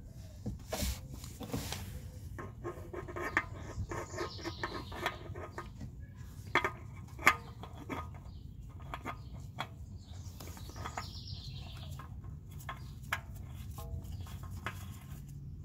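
A gloved hand screwing a new spin-on oil filter onto its mount by hand: a run of small clicks, taps and rubbing as the filter is turned, with two sharper ticks about halfway through.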